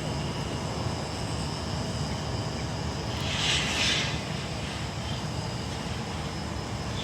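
Steady low engine rumble, with a brief hiss about three and a half seconds in.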